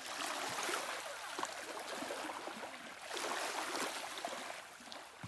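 Lake water sloshing and lapping in the shallows as children wade through it, the sound swelling and easing twice.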